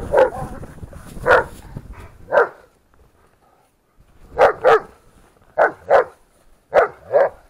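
White livestock guardian dogs barking at each other in play: short, sharp barks, mostly in quick pairs, with a pause of about a second and a half partway through.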